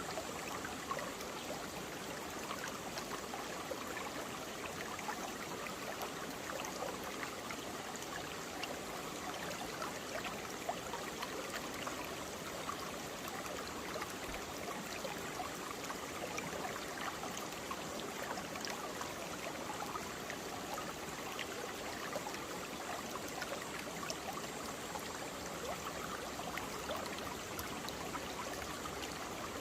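Mountain stream flowing over rocks, a steady babble of water with fine splashes and trickles throughout.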